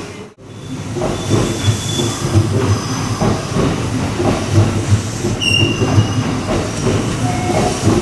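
Train on the rails at a station platform: a steady rumble with uneven low thumps and a couple of brief high wheel squeals.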